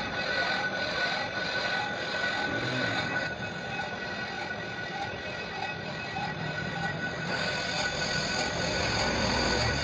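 Steady machinery running, with several steady high-pitched tones over a constant noise; the upper tones shift slightly about seven seconds in.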